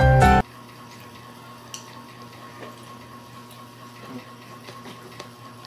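Background music that cuts off abruptly about half a second in. It gives way to quiet room tone with a low hum and faint sipping of milk tea through a plastic straw, with a few small clicks.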